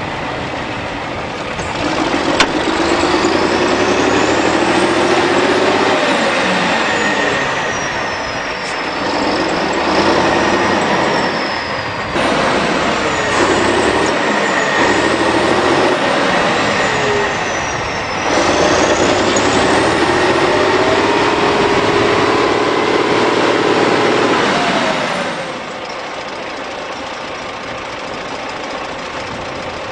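Heavy wheeled farm tractor's diesel engine revving hard under load, towing a stuck SUV out of mud. It comes in three long surges, each rising in pitch, with a whine above. About 26 seconds in it falls back to a steadier, lower run.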